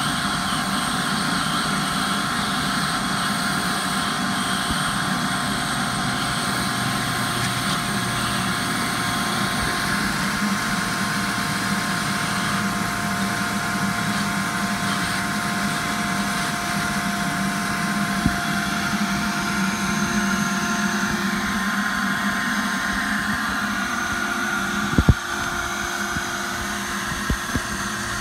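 Ridgid 5-gallon wet/dry shop vac running steadily, its hose sucking on an air conditioner's PVC condensate drain line while a DeWalt cordless drill turns a drain snake in the pipe. A few sharp knocks near the end.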